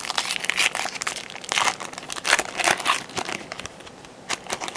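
Foil wrapper of a Topps Chrome trading-card pack being torn open and crinkled by hand: a dense run of crackling for about three seconds, then a few sharp crinkles near the end.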